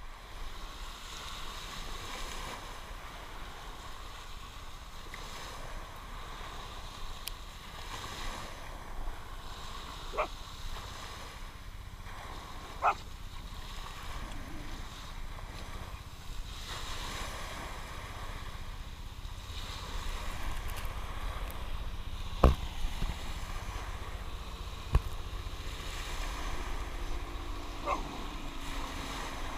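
Small waves washing up the beach in a steady wash, with wind on the microphone. A few short sharp knocks break through, the loudest a little past two-thirds of the way in.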